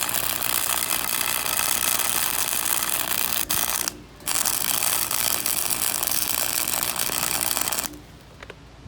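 A cheap MIG welder running a bead on steel: a steady, dense arc crackle. It breaks off briefly about four seconds in, then resumes and stops about a second before the end.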